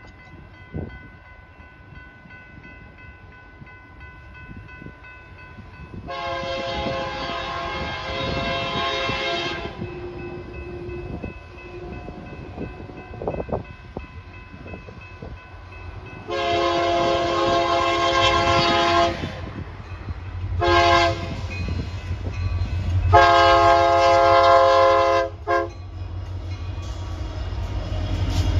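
Union Pacific freight locomotive's air horn blowing a multi-note chord in the grade-crossing pattern: a long blast about six seconds in, then another long, a short and a long as the train nears the crossing. The diesel locomotive's low rumble builds near the end as it comes alongside.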